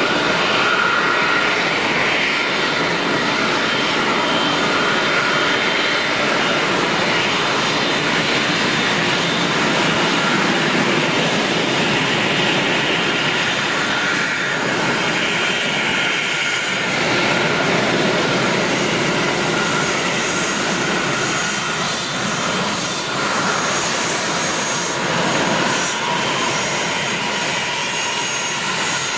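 An Airbus A380's four GP7200 turbofan engines running at taxi power. The sound is a steady jet rush with a faint high whine.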